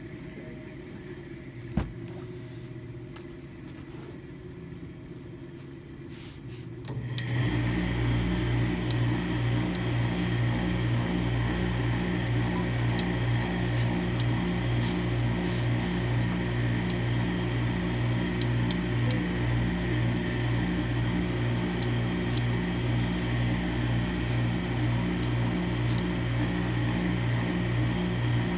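Motor of steam-pressing equipment comes on about seven seconds in and runs steadily: a low hum that pulses about twice a second under a steady hiss, with a few faint clicks.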